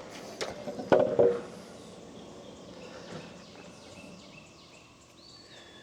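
A few knocks and a short metallic ring about a second in, from handling the sawmill parts and gauge blocks, then faint outdoor background with a run of quick high bird chirps and a thin whistled bird note near the end.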